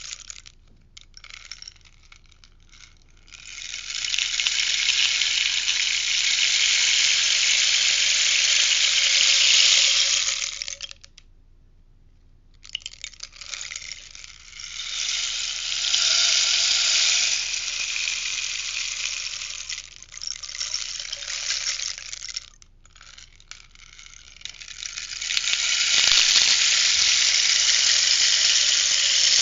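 Rainstick being tipped, its pebbles or beads trickling down inside in a steady rain-like patter. It runs in three long pours, each several seconds long, with short near-quiet pauses between them as the stick is turned over.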